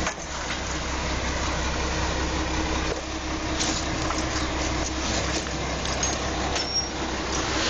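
An engine running steadily at idle: a low hum under an even hiss, with a few light clicks.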